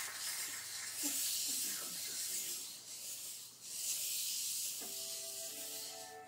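Plastic hula hoop spinning around a person's waist, a steady high hiss that dips briefly partway through. Music with long held notes comes in near the end.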